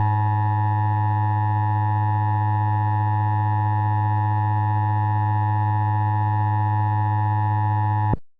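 Emergency Alert System attention signal: a steady electronic two-tone alarm with a strong low hum underneath. It holds for about eight seconds and cuts off suddenly.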